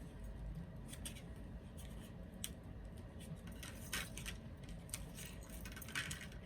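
Scattered light clicks and crinkles of hands handling a doll's packaging and a small plastic accessory.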